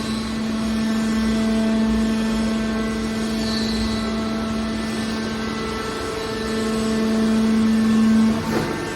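Steady machine hum, the drone of a hydraulic scrap-metal baler's power unit running. It holds one low tone with higher overtones and swells a little near the end.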